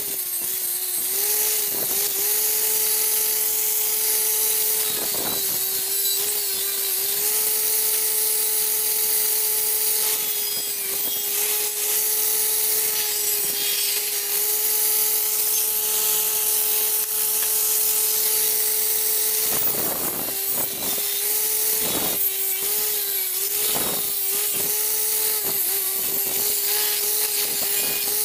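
Maktec angle grinder with a wire brush wheel running and scrubbing rust off the metal gear-housing cover of an antique breast drill. A steady motor whine briefly dips in pitch several times, over a constant hiss of wire on metal.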